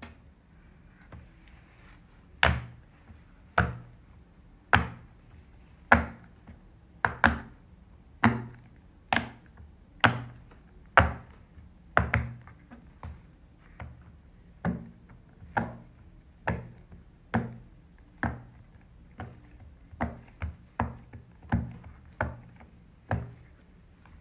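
Silicone pop-it fidget toy having its bubbles pressed: a series of sharp pops, roughly one a second and now and then two close together, starting about two seconds in.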